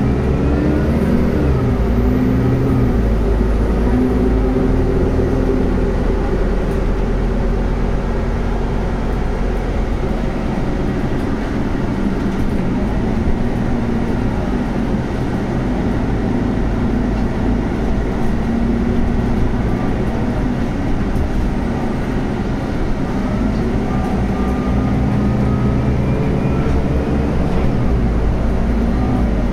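Interior sound of a Scania Castrosua New City 18-metre articulated bus running on compressed natural gas with a ZF Ecolife automatic gearbox, driving along: steady engine and road rumble with the engine note rising and falling as the speed changes, and faint whines near the start and near the end.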